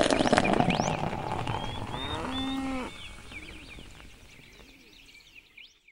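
Farm sound effect: a cow moos once, about two seconds in, over a hiss of milk squirting into a pail. Short high chirps run through it, and the whole sound fades out near the end.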